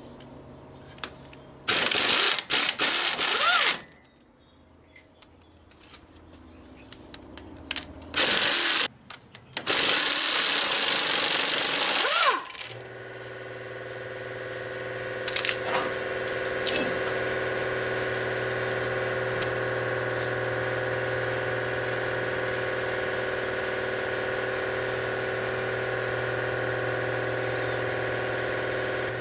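Pneumatic impact wrench hammering the axle flange nuts off a semi truck's drive hub in three bursts, the last about three seconds long. After that a steady machine hum with a few steady tones carries on, with a couple of small clicks.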